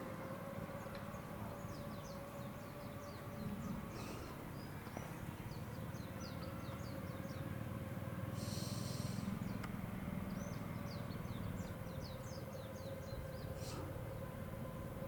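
Small birds chirping in quick runs of short high notes, twice, over a steady low hum.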